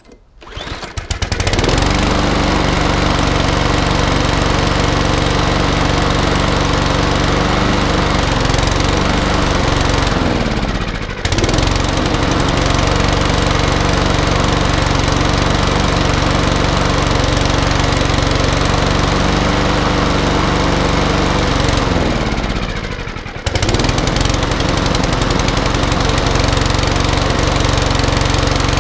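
Mountfield HP46R lawnmower's RSC100 overhead-valve petrol engine pull-started from cold on choke, catching within about a second and running loud and steady. Twice its speed falls away as though about to stall, then picks up again sharply: the cold engine not yet willing to hold an idle.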